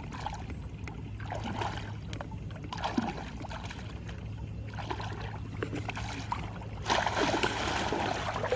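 Water splashing and sloshing in irregular bursts, heaviest about seven seconds in, over a steady low hum.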